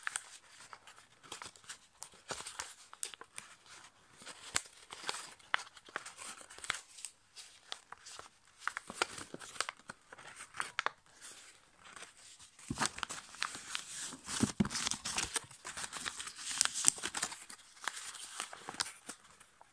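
A sheet of A5 copy paper being folded and pressed by hand into a paper airplane: irregular crinkling and crackling, busier and louder in the second half.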